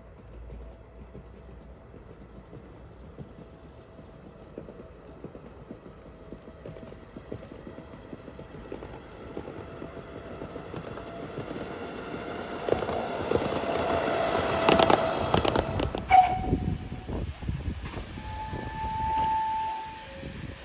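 Heritage railway train approaching and passing, its rumble and clatter growing louder to a peak about two-thirds of the way in, with a steady high tone underneath. A short toot sounds near the end.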